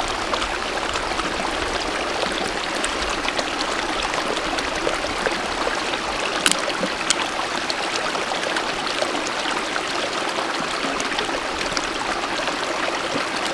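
Small mountain stream running steadily over rocks, with a few sharp clicks, the loudest about six and a half seconds in.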